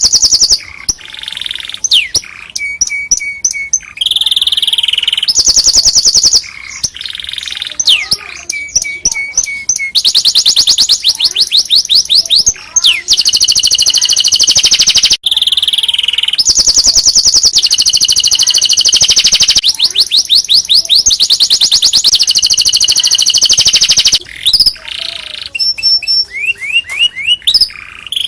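Domestic canary singing loudly in long phrases: rapid trills of evenly repeated notes and quick rising sweeps, with brief pauses between phrases. It is a canary tutor song of the kind played to teach other canaries.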